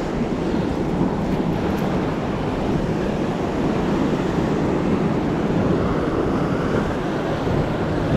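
Ocean surf washing against a rocky shore, a steady rushing noise, with wind on the microphone.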